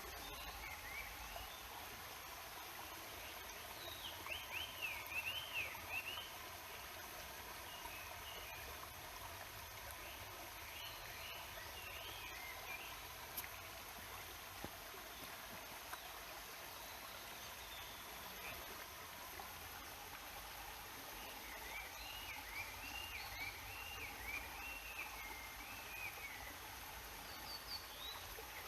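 Steady rush of flowing water from a stream and waterfall, with a small bird singing quick up-and-down warbling phrases three times: about four seconds in, near the middle, and for several seconds near the end.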